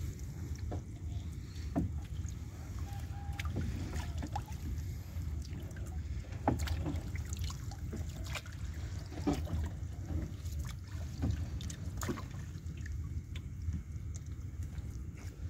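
Water splashing and dripping as a wet fishing net is hauled by hand over a boat's side, with scattered small splashes and knocks over a low steady rumble.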